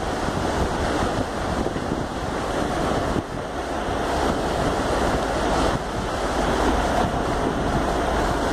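Steady rushing of a whitewater river's rapids, with wind buffeting the microphone.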